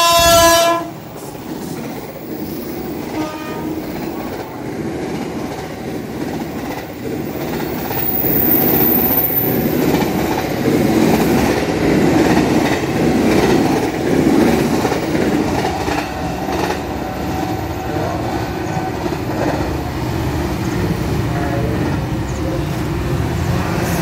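KRL JR 205 electric commuter train sounding a short chord horn blast right at the start, then running past with a steady rumble of wheels on the rails. The rumble grows louder near the middle as the cars go by.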